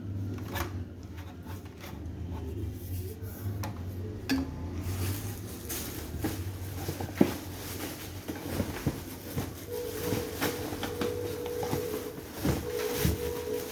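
Hard plastic vacuum cleaner parts being handled and fitted together: scattered clicks and knocks, the sharpest about seven seconds in.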